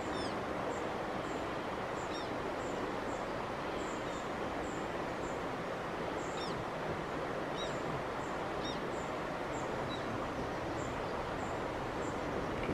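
Outdoor ambience: a steady background rush with small birds calling over it, one giving a short high chirp about twice a second and a few short falling calls scattered through.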